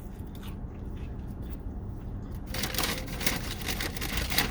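Paper food packaging rustling and crinkling, starting about two and a half seconds in as a dense crackle of small ticks.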